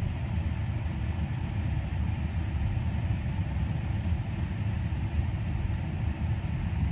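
Steady low rumble of tyre, wind and road noise picked up by a camera mounted on a Tesla Model Y as the driverless car rolls slowly backward across a parking lot under Actual Smart Summon.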